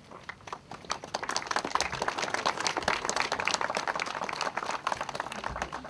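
A small crowd applauding outdoors, starting with a few claps, filling out about a second in and thinning out near the end.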